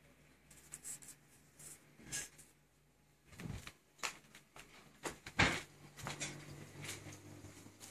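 Handling noise around the camera: scattered light knocks and clicks, the loudest about halfway through, over a faint low steady hum that comes up in the second half.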